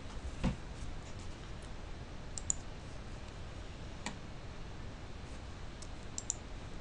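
A few scattered computer mouse clicks, the clearest about half a second in and another about four seconds in, over a steady low room hiss.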